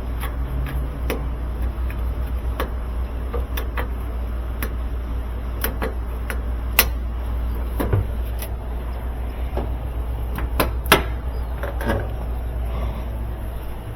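Scattered clicks and knocks of washing-machine parts being handled and taken apart, with two louder knocks, one about seven seconds in and one near eleven seconds, over a steady low hum.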